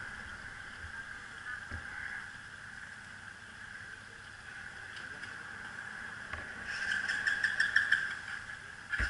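A stalled ATV, drowned in creek water, being turned over: a rapid pulsing of about five beats a second starts about seven seconds in and stops after a second and a half, over a steady hiss of running water.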